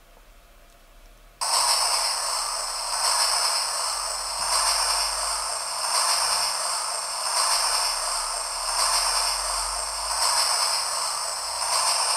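Small handheld alibi sound-effect player playing a recorded background noise through its tiny speaker: a hissy rushing sound that starts suddenly about a second and a half in, then swells and eases about every one and a half seconds.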